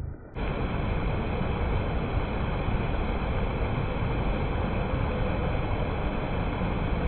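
Flood-swollen river water pouring steadily over a low weir and churning in the pool below, running high and fast.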